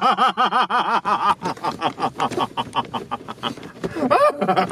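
A man cackling: a fast run of high "ha-ha-ha" laughs, about six a second, that breaks after a second and a half into choppier, ragged laughter.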